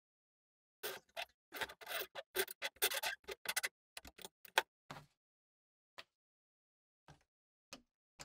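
Steel bench vise being cranked open, its sliding handle and screw giving a quick run of metallic clicks and rattles for about three seconds. A few scattered light taps follow.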